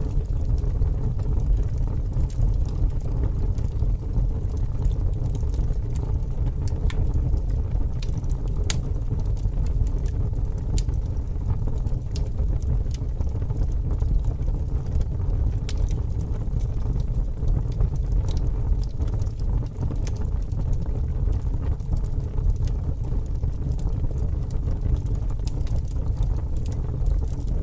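Bonfire burning, with scattered sharp crackles and pops from the burning wood over a steady low rumble.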